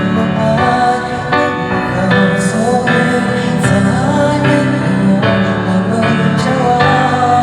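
Music: a man singing over a played instrumental accompaniment, with chords changing about once a second, as a test of the Maono AME2 sound card's vocal sound.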